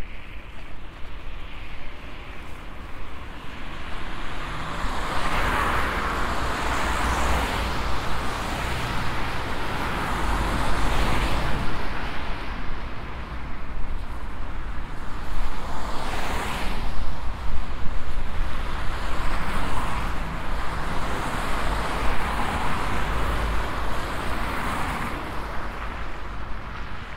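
City road traffic: several cars pass one after another, their tyre and engine noise swelling and fading, over a steady low rumble.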